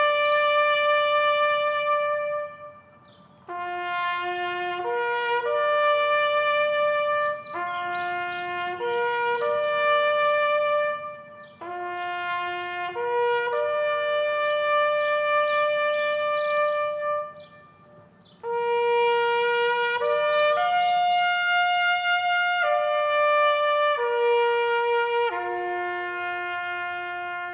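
Music: a slow melody played on a single brass instrument, one held note at a time, in phrases with short pauses between them, growing quieter near the end.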